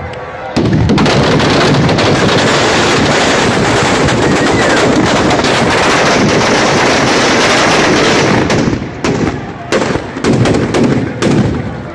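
Firecrackers packed inside a burning Ravan effigy going off. A dense, unbroken volley of rapid bangs starts about half a second in, and after about eight seconds it breaks up into separate loud bangs.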